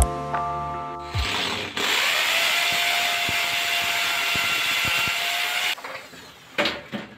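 Electric drill boring into the wall, running steadily for about four and a half seconds and then stopping, followed by a couple of sharp knocks near the end.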